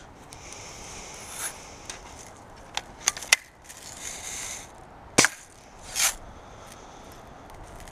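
4.5 mm BB air rifle being handled and fired: a few light clicks around three seconds in, then one sharp shot a little past the middle, followed a moment later by a short rush of noise.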